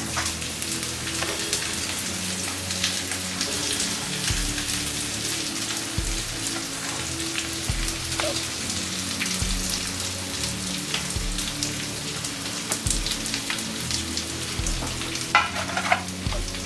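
Carrot, egg and onion stir-frying in hot oil in a pan: a steady sizzle full of small crackles. Near the end, two sharp strikes of a spatula against the pan.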